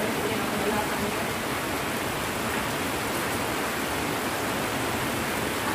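Heavy rain pouring steadily, an even dense hiss.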